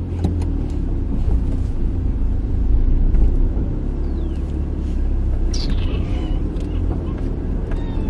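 Steady low rumble of a car's engine and road noise heard inside the cabin while driving, with a few faint clicks and a short hiss a little past halfway.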